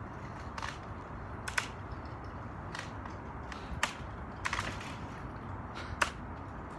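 A series of about six sharp clicks or knocks at irregular intervals, roughly a second apart.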